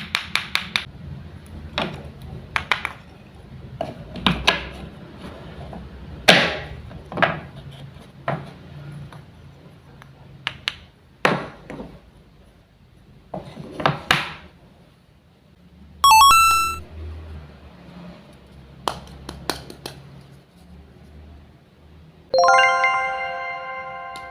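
Wooden toy play-food and toy knife being cut apart and set down: irregular taps, knocks and clacks of wood on wood, some with a short rasp. A bright chime sounds about two-thirds of the way in, and a longer ringing chime starts near the end and fades.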